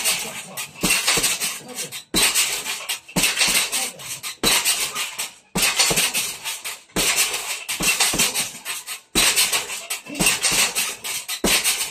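Boxing gloves striking a hanging heavy bag in rapid flurries, each about a second long, with short breaks between.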